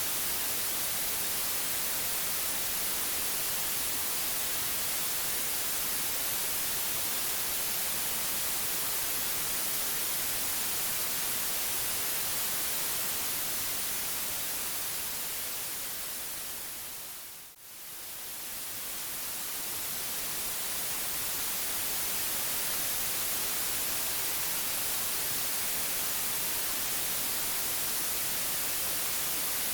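Steady white noise hiss, even across all pitches and a little brighter in the highs. A little past the middle it fades down to a brief dip and swells back up over a few seconds, like a loop seam.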